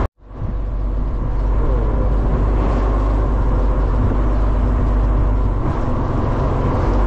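Boat engine running steadily under way. The sound cuts out for an instant at the very start.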